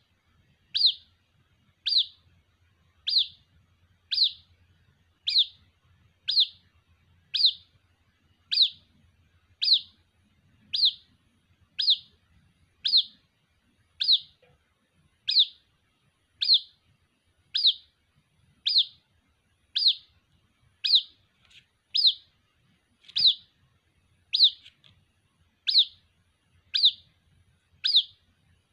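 White-breasted waterhen chick calling for its parent: a short, high-pitched peep repeated at a very even pace, about once a second.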